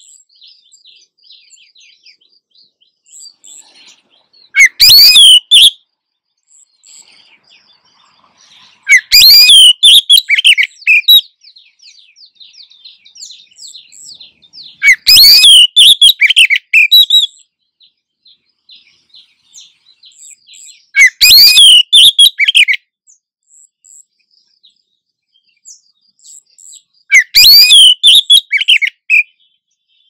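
Oriental magpie-robin calling, given as a female's breeding-season call that draws a male: five loud bursts of sharp, swooping high notes about six seconds apart, with faint rapid chattering between them.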